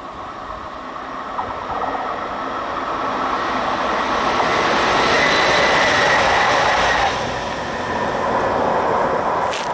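Two coupled electric locomotives running light pass by on the rails: the rolling noise of wheels on track grows to its loudest around the middle, with a thin high whine for a few seconds at the peak, then fades as they go away. A sharp click comes near the end.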